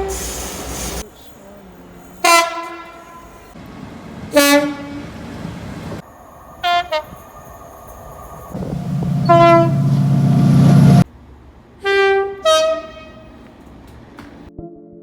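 Train horns sounding in a string of short separate blasts, some single notes and some two-note toots, low then high near the end. A loud low rumble runs for a couple of seconds partway through, with a horn note over it.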